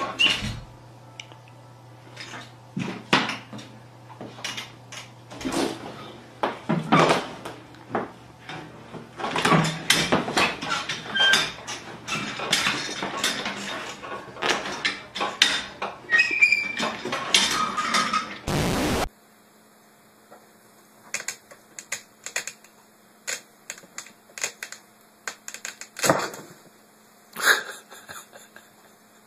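A tiger cub wrestling with an office chair: repeated irregular knocks and clattering as the chair's base and casters bang about on a hard floor. After a sudden change about two-thirds of the way in, only a few sparse clicks and knocks over a quiet background.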